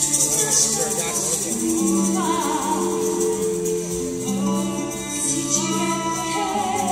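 Live stage-show music: several voices singing long held notes over a band backing, with a rattling percussion rhythm in the first second.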